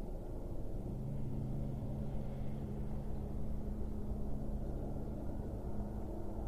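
Distant engine drone: a steady low rumble, with two steady hum tones coming in about a second in and holding.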